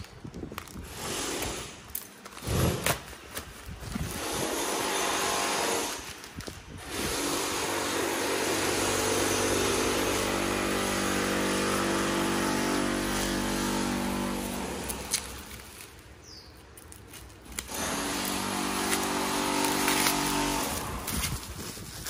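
A power tool from neighbouring renovation work running steadily with a droning hum, stopping about fifteen seconds in and starting again near the end. In the first few seconds, scissors snip through a plastic mailer and bubble wrap crinkles.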